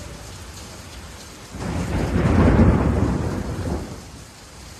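Steady rain hiss. About one and a half seconds in, a loud low rumble of thunder swells suddenly, peaks, and fades away by about four seconds.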